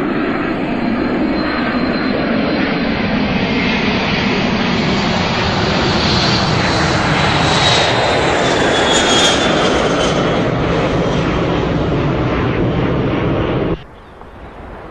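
Airplane flying by, its engines giving a loud, steady rush with a high whine that slowly falls in pitch about halfway through. The noise cuts off suddenly about a second before the end, leaving a quieter steady rush.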